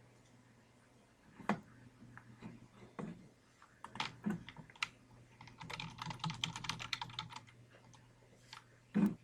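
Typing on a computer keyboard: scattered key presses, then a quick run of keystrokes about halfway through, with a louder knock near the end.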